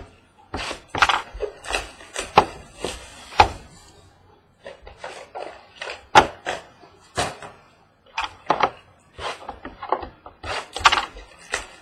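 A cardboard trading-card box and its packaging being handled and opened: an irregular run of sharp clicks, knocks and rustles.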